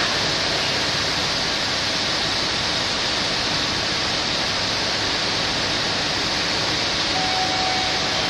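Steady rushing noise of a TLK passenger train's carriages rolling along a station platform, with a faint thin tone near the end.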